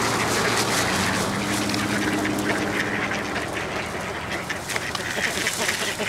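A flock of ducks quacking and chattering, many short calls overlapping without a pause. A low steady hum runs underneath during the first half.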